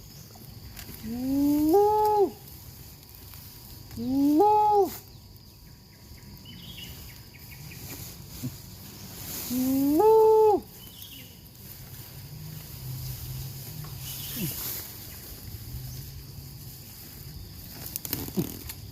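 Spotted deer (chital) giving three drawn-out calls, each rising in pitch and then held for about a second before breaking off. The calls come about a second in, around four seconds in, and near the middle.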